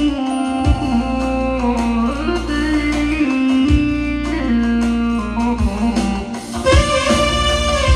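Instrumental music on an electronic keyboard: a held melody line over a sustained bass, with a few drum hits.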